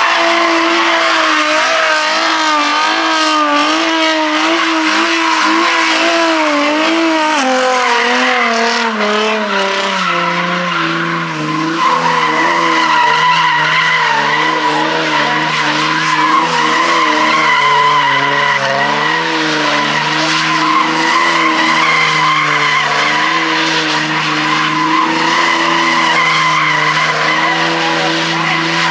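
Car engine held at high revs with its pitch wavering, settling to a lower steady pitch about eight to ten seconds in, while the tyres squeal in a continuous slide.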